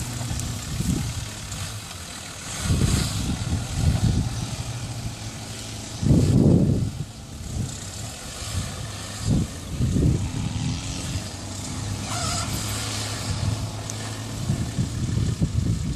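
Nissan Patrol Y60's TD42 4.2-litre straight-six diesel engine running as the lifted 4x4 crawls down a rough off-road slope, a steady low drone with several loud, uneven low surges.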